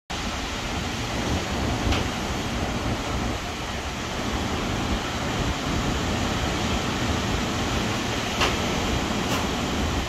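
Gulf waves breaking on a sandy beach: a steady rushing surf noise over an uneven low rumble, with a few faint brief clicks about two seconds in and near the end.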